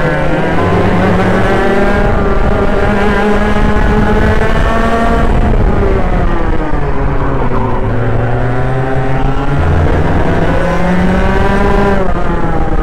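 Racing kart engine heard from the driver's helmet at speed. The revs climb for about five seconds, drop sharply, climb again after about eight seconds, and fall off near the end.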